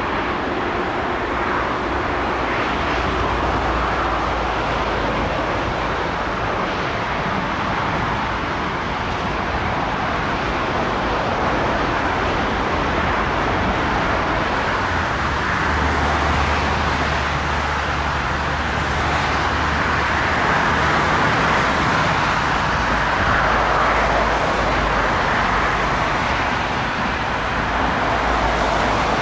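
Steady roar of jet airliner engines, swelling slightly around the middle.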